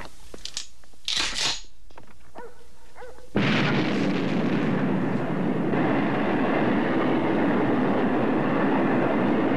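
A few light clicks and knocks of a rifle being handled, then about three seconds in a sudden, loud, steady rocket roar of an ICBM launching, which cuts off abruptly near the end.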